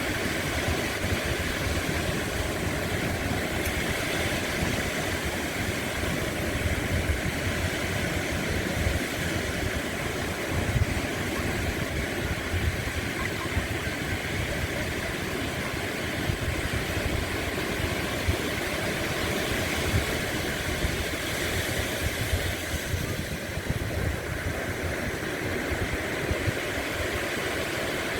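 Sea waves running steadily, with a low rumble underneath and no distinct breaks between waves.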